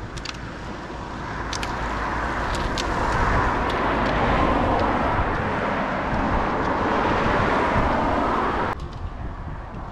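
Steady rushing outdoor road noise that builds over the first few seconds and drops off abruptly near the end, with a few sharp clicks in the first three seconds.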